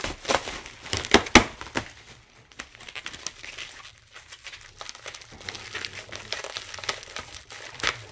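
Plastic packaging crinkling and rustling as it is handled and pulled open. It is loudest in the first two seconds with sharp crackles, then settles to lighter rustling.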